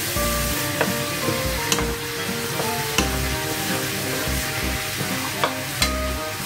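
Moringa pods, onion and tomato sizzling in a frying pan as a wooden spatula stirs them. The spatula scrapes and knocks against the pan about once a second.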